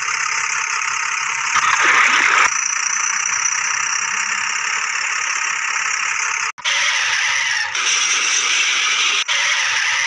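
Dubbed-in truck engine sound effect: a steady hissing engine drone that swells for about a second near the start, then cuts off abruptly and restarts changed about six and a half seconds in.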